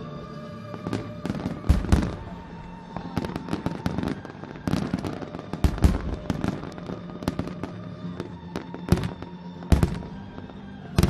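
Fireworks going off in an irregular string of sharp bangs and pops, a handful of them much louder than the rest, over music with steady held notes.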